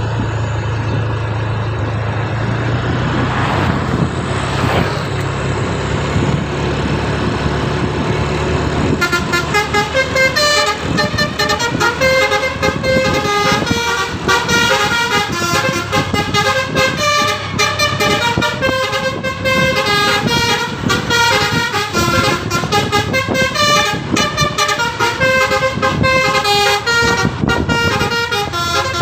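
A bus's low engine hum, with a rushing noise that swells and fades around four seconds in. From about nine seconds in, a telolet multi-tone musical horn plays a quick melody of short stepped notes that keeps changing pitch.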